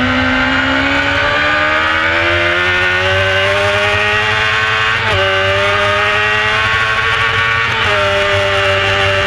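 Carburetted 600cc race bike engine heard from onboard, pulling hard out of a corner: the note climbs steadily and drops a step with an upshift about five seconds in and again near the end, rising again after each.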